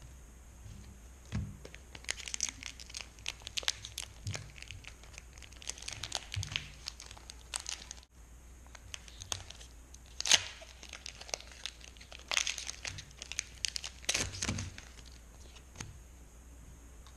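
Crinkling and tearing of a foil Pokémon booster pack wrapper being handled and ripped open, a dense run of sharp crackles with a few louder rips.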